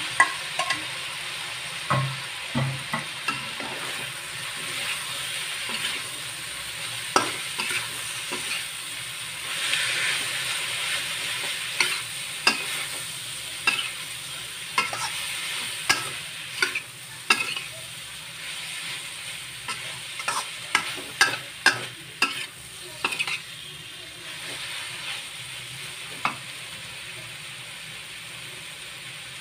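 Stir-fry sizzling in a metal wok as a spatula tosses bean sprouts, mushrooms and prawns, scraping and clinking against the pan in irregular knocks. The clinks stop a few seconds before the end, leaving only the steady sizzle.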